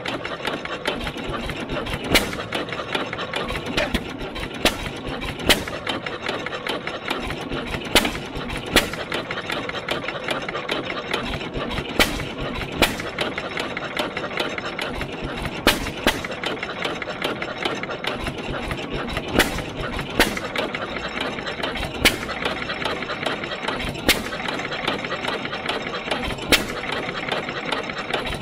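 1914 Fuller & Johnson 6 hp single-cylinder hit-and-miss gas engine running, firing with a sharp bang every one to two seconds at uneven intervals as it hits and coasts, with steady mechanical clatter in between.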